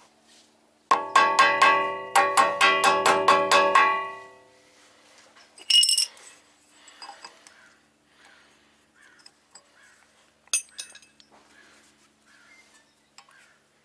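Hammer tapping a steel hub-and-bearing unit onto its spindle: two quick runs of blows, about four or five a second, each ringing with a bell-like metallic pitch. A sharp higher clink follows a couple of seconds later, then a few light metal clinks. The bearing is hard to seat.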